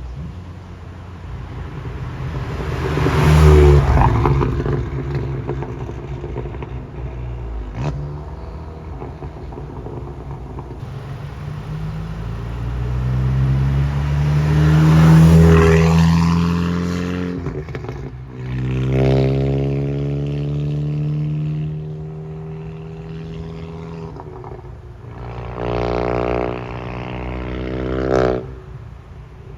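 Volkswagen MK7 GTI's turbocharged 2.0-litre four-cylinder, breathing through an APR cat-back exhaust with its valves open and a catless downpipe, accelerating through the gears in several rising pulls. It is loudest around 3 and 15 seconds in, and the last pull cuts off suddenly near the end.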